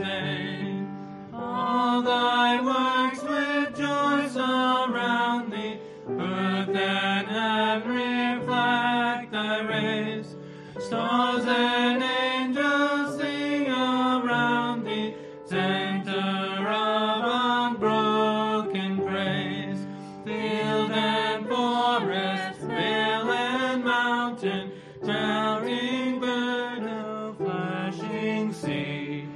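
A woman and two men singing a hymn together into one microphone, line by line with short breaks between phrases.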